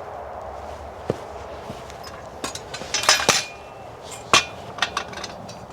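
Metal tools and parts clanking and clinking as they are handled and set down: a scatter of sharp knocks, the loudest cluster about halfway through, some with a brief metallic ring.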